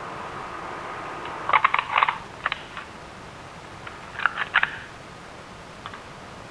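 Two quick clusters of sharp clicks, the first about one and a half seconds in and the second a little after four seconds, over a faint steady hum that fades out about three seconds in.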